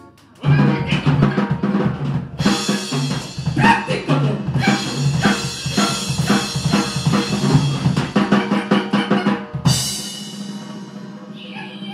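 Live drum kit and electric guitars playing together, the drums busy with fills and cymbal crashes. Near the end a last cymbal crash rings out and the playing drops away, leaving a faint held tone.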